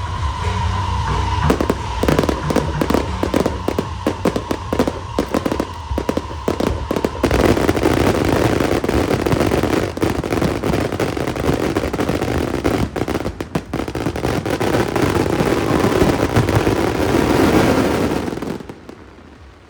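Aerial fireworks going off: rapid cracks and bangs in quick succession, thickening into a dense, continuous crackling barrage for about ten seconds, then dying away near the end.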